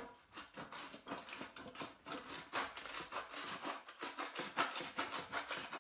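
Cheese being grated by hand on a metal grater: quick repeated crisp scraping strokes, several a second, which stop suddenly.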